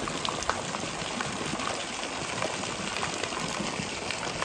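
Pool water splashing and churning as a golden retriever paddles through it, with many small splashes from droplets of spray falling onto the surface.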